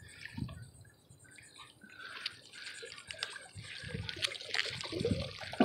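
Faint water trickling and dripping off a metal object being hauled out of the water on a magnet-fishing rope, with light scattered ticks and knocks. It starts almost silent and slowly grows louder toward the end.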